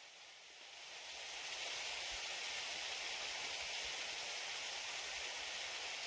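Steady rushing of a mountain stream flowing over rocks, swelling over the first second or so and then holding even.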